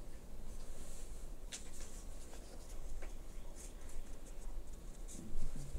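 Freshly sharpened kitchen knife slicing through a sheet of printer paper in a paper-cutting test of the edge: several short, soft, light rasping strokes.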